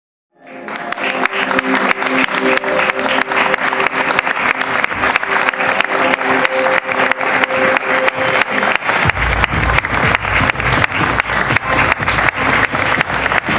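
Audience applauding over runway music, dense steady clapping. The music holds sustained chords, and about nine seconds in a deep bass beat comes in.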